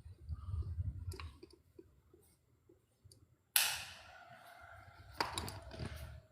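A Buddhist temple bell struck once about halfway through, ringing on with a few steady tones that slowly fade. A couple of sharp knocks come a little later.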